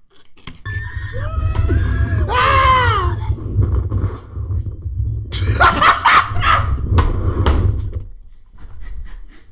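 Riders screaming on a slingshot ride, over a heavy wind rumble on the ride camera's microphone. A wavering, falling high scream comes early, and louder shrieks come from about five seconds in, before the rumble drops away near the end.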